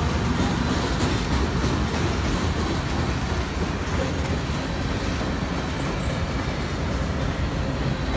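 Freight train's tank cars and coil-steel cars rolling past close by: the steady rumble and clatter of steel wheels on the rails.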